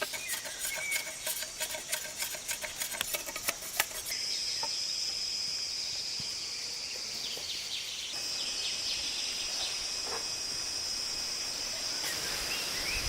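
Outdoor woodland ambience: rapid, irregular clicks and crackles for the first few seconds, then a steady high-pitched insect drone with a few short bird chirps over it.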